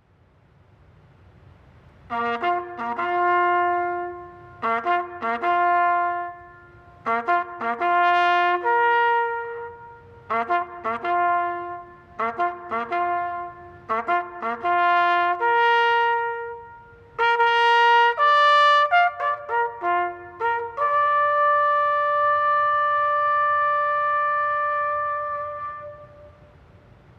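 Solo trumpet playing a bugle call: short repeated and leaping notes, then one long held high note near the end that fades away.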